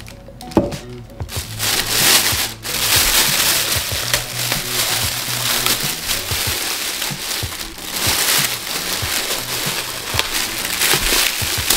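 Clear plastic bag crinkling and rustling as it is pulled and worked off a stainless-steel juicer part, going almost continuously after the first couple of seconds. Music plays underneath.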